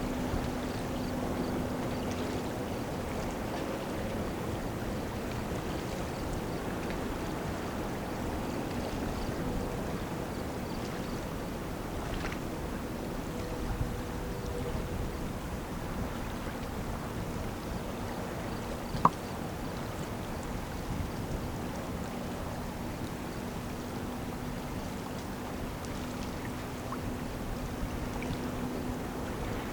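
Steady low drone of a passing lake freighter over a wash of moving river water, with the hum fading about three seconds in and returning about two-thirds of the way through. A single sharp click sounds about two-thirds of the way in.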